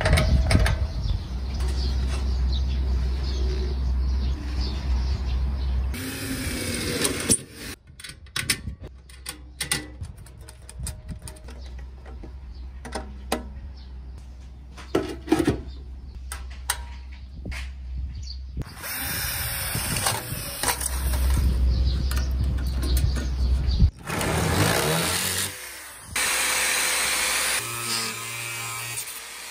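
Small metallic clicks and clinks of bolts and nuts being fastened by hand into a stainless-steel pan, then near the end an angle grinder cutting steel threaded rod.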